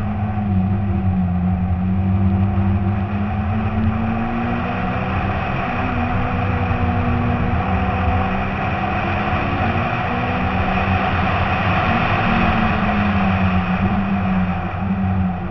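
Citroën C2 rally car's engine running hard at speed, its pitch rising and falling with throttle and gear changes, over wind and road noise heard from the car itself.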